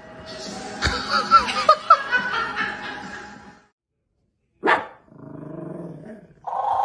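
Dog barking, with a cluster of sharp barks about one to two seconds in and shorter calls later.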